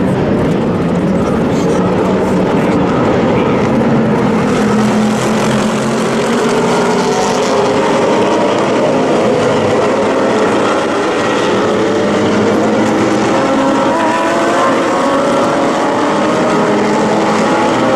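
A large field of GT race cars passing together, many engines at high revs overlapping into one loud, steady din, with several engine notes rising in pitch as the cars accelerate.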